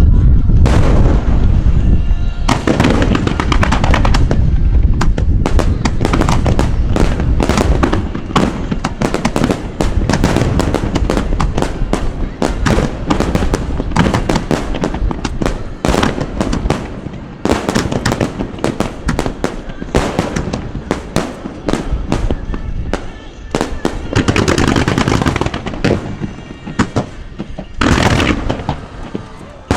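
Fireworks finale barrage: many shells bursting in rapid, overlapping succession, with booms and crackling and a few brief lulls.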